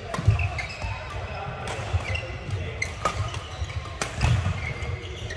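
Badminton doubles rally: rackets strike the shuttlecock with sharp cracks several times, about a second or so apart, over the thudding and short squeaks of court shoes on the floor.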